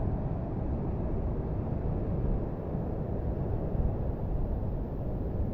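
Strong wind buffeting the microphone: a steady, low, even noise with no clear tones.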